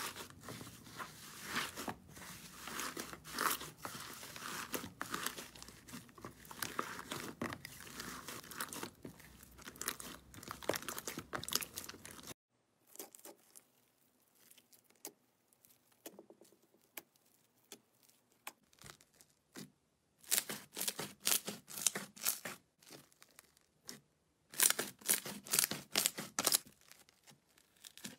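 Slime being kneaded by hand: a thick slime mixed with beads is squeezed and folded, giving steady crackling and sticky popping. About twelve seconds in the sound drops to near quiet with a few clicks, then a granular crunchy slime with foam beads is pressed, and bursts of crackles and pops come near the end.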